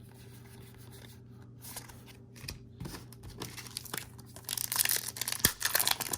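Booster pack's foil wrapper crinkling and tearing: soft clicks of handling at first, then dense, loud crackling from about four and a half seconds in. A steady low hum runs underneath.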